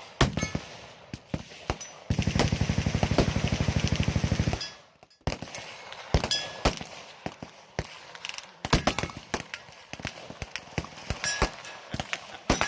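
A sustained burst of fully automatic gunfire, about two and a half seconds of rapid, evenly spaced shots, starting about two seconds in. Scattered single gunshots sound before and after it.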